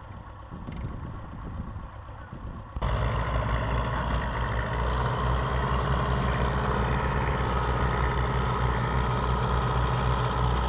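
Belarus 510 tractor's diesel engine working hard to pull a fully loaded earth trolley, with a front-loader tractor's engine pushing from behind. The engine sound jumps suddenly louder about three seconds in, then holds steady and heavy under load as the tractor's front wheels lift.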